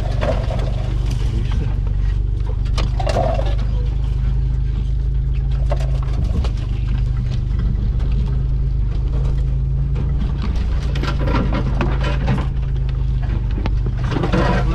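Off-road 4x4's engine running with a steady low drone while crawling over a rough forest track, heard from inside the cabin, with knocks and rattles over the bumps. Near the end, branches scrape along the windscreen and body.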